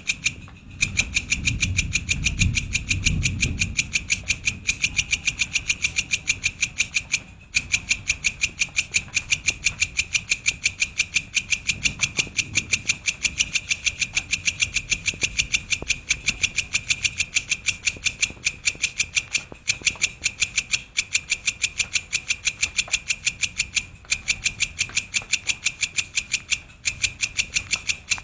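A songbird calls in a rapid-fire 'tembakan' phrase: short, high notes repeated evenly at about five a second, with a few brief breaks. A low rumble sounds under it for the first few seconds.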